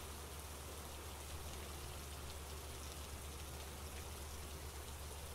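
Steady rain falling: an even hiss with fine patter of drops over a low, constant rumble.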